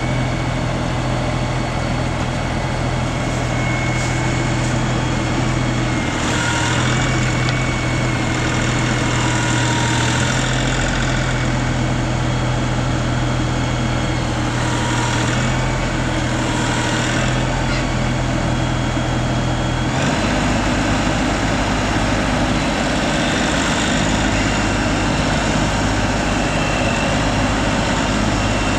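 LS compact tractor's diesel engine running steadily while the loader grapple works among logs. About two-thirds of the way through, the engine note drops to a lower pitch.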